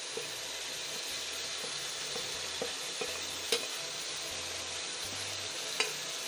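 Tomato and potato masala sizzling in a pot while a spoon stirs it, with two sharp clicks of the spoon against the pot.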